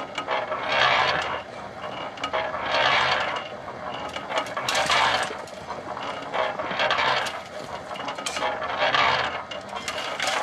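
Small electric cement mixer running, its drum noise swelling and fading in a regular rhythm about every two seconds as the drum turns, with a low motor hum.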